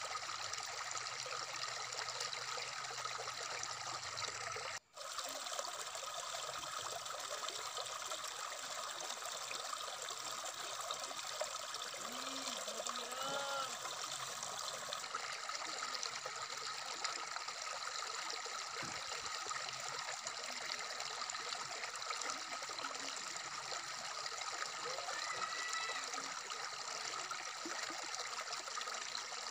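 Shallow stream running over rocks, a steady babbling rush of water. It cuts out for an instant about five seconds in.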